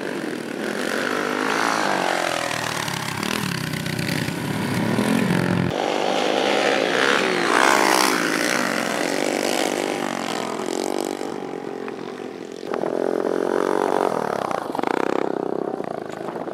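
Small youth dirt bike engines revving as the bikes ride the track, the pitch rising and falling again and again. The sound changes abruptly twice.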